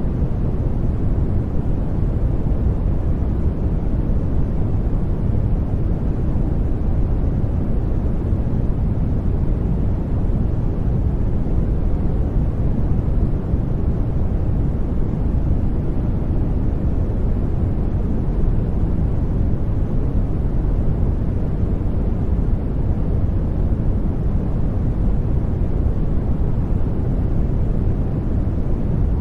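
Steady generated noise, unchanging throughout, with most of its energy in the low end and little high hiss, so it sounds deep and rushing rather than bright.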